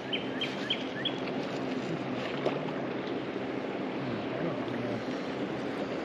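Shallow river water flowing and rippling steadily around a wader's legs, with a run of short, evenly spaced high chirps in the first second.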